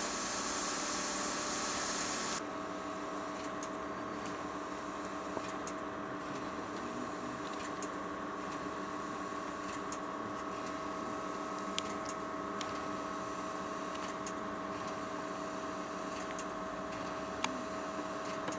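Steam locomotive 241P17 standing under steam: a steady hum carrying several held tones, with a high hiss that cuts off suddenly about two seconds in. A few faint clicks follow.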